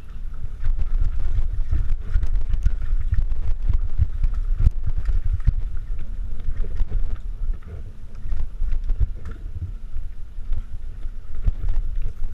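Mountain bike descending a rough downhill trail: heavy wind rumble on the microphone, with tyres running over dirt and rocks and many irregular sharp clicks and rattles from the bike.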